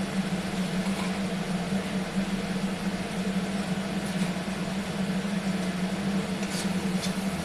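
Steady machine hum on one constant low pitch, like a motor or fan running, with a few faint clicks near the end.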